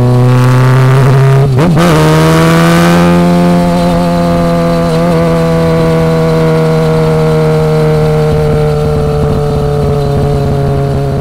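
Yamaha XJ6's inline-four engine running through a Willy Made Firetong aftermarket exhaust. There is a quick change in throttle about a second and a half in, after which the exhaust note holds steady and slowly drops in pitch.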